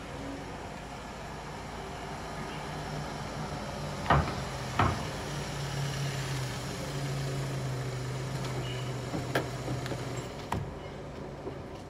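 A car pulling up over a low steady drone, with several sharp knocks, the last ones as the car's door is opened.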